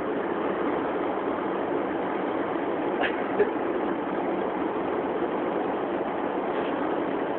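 Steady engine and road noise heard inside a moving car's cabin, with one short click about three and a half seconds in.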